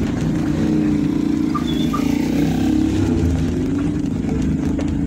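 A motor vehicle's engine running steadily while driving along, a continuous low hum with its pitch wavering slightly.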